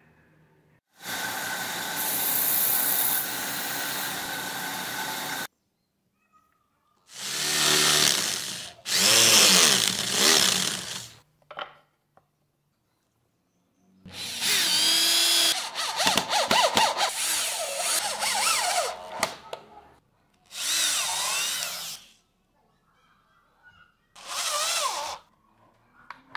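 Power drill running in five separate bursts, drilling into plywood. The first burst holds a steady speed; in the later ones the motor's pitch rises and falls as the trigger and the load change.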